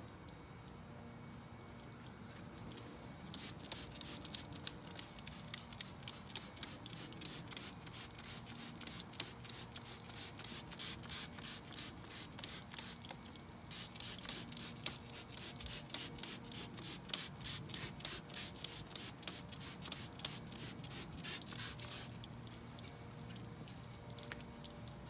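Hand trigger spray bottle squirting foaming coil cleaner onto a mud-caked radiator core. It is pumped rapidly, several squirts a second, starting about three seconds in and running for close to twenty seconds with one short pause midway.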